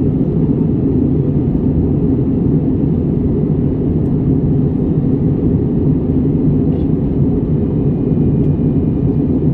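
Steady, deep rumbling noise, even and unbroken, with no waves or other events rising out of it.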